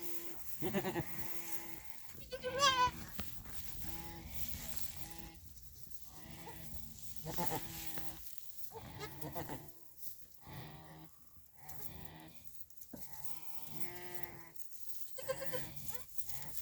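Goats snoring: a string of short, pitched nasal snores repeating every second or so, with a louder, wavering call about two and a half seconds in.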